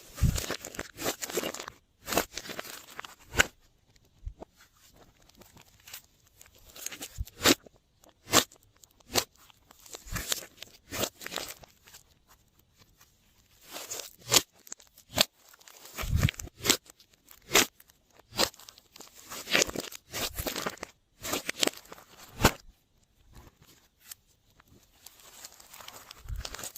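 Glossy slime being kneaded and stretched by hand, giving irregular sticky clicks, pops and crackles.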